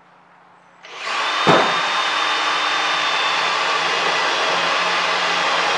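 Cordless drill starting about a second in and running steadily, driving a self-tapping screw into a sheet-metal plate, with a sharp click shortly after it starts.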